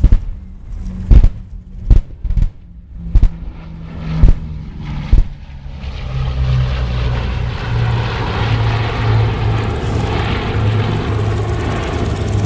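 Boeing B-29 Superfortress's four Wright R-3350 radial piston engines, a distant low hum at first that swells into a loud, steady drone about six seconds in as the bomber passes overhead. Before the drone builds, a string of sharp pops, roughly one a second, stands out above the engine sound.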